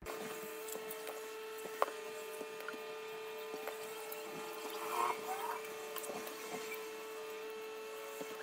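Metal spoon scraping inside an avocado's skin as the flesh is scooped out, with scattered sharp clicks of the spoon against the skin and a short burst of scraping about five seconds in. A steady hum runs underneath.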